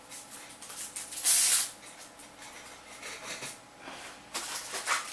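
Plastic wrap crinkling and rustling as it is handled, in uneven bursts, the loudest about a second in.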